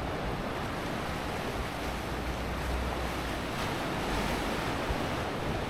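Atlantic surf washing steadily against the shore, with wind rumbling on the microphone.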